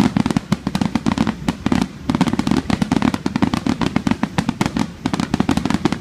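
Fireworks barrage: many aerial shells bursting in quick succession, a dense, unbroken string of bangs and booms, many a second.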